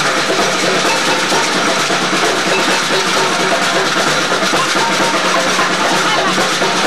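Samba percussion band playing a loud, steady, dense rhythm, with crowd voices mixed in.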